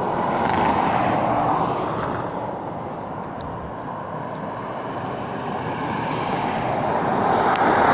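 Wind rushing over the microphone on a moving bicycle, a steady roar that eases a little midway and swells again near the end.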